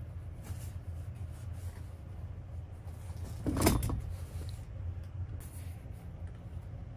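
Faint rustling as stuffing is pushed into a crocheted piece by hand, over a steady low hum. A brief louder handling sound comes about three and a half seconds in.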